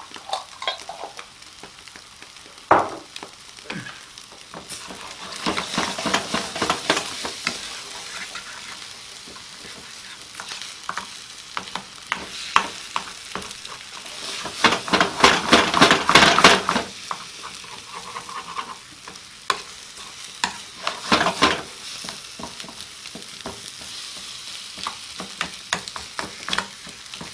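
Eggs and curry meat sizzling in a frying pan while a metal spoon stirs and scrapes against the pan. The scraping comes in bouts, loudest around the middle.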